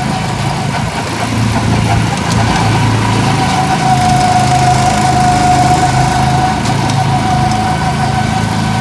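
Small petrol go-kart engines running steadily as the karts drive around the track, with a steady high whine over the low engine hum, a little louder through the middle.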